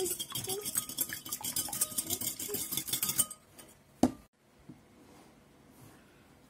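Metal wire whisk beating an egg in a glass bowl: rapid clinking and scraping of the wires against the glass for about three seconds, then it stops. A single sharp knock follows about a second later.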